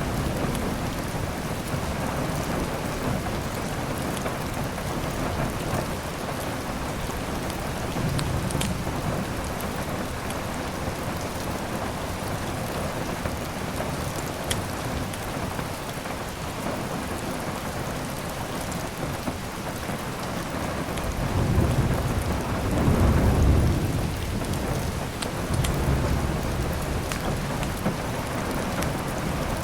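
Steady heavy rain with low rolling thunder that swells a little at about a quarter of the way in and most strongly about three-quarters of the way through, with a few faint sharp crackles from a wood fire.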